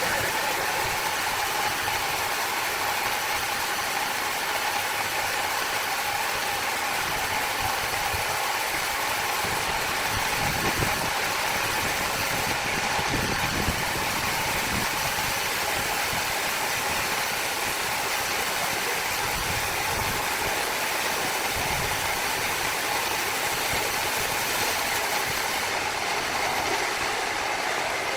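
Wood-cutting saw machine running steadily: a constant engine-like drone with a steady high whine over it.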